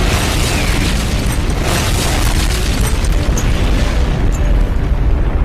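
Bomb explosion sound effect dubbed in where a hiccup would be: a sudden loud blast of noise with a heavy low end that keeps going for several seconds.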